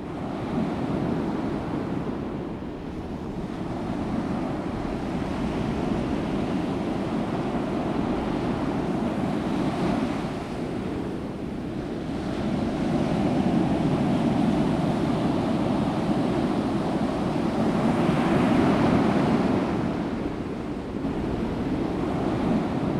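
Sea surf breaking on a rocky beach, a steady wash that swells and eases as the waves come in, louder about midway and again near the end. The sound fades in at the very start.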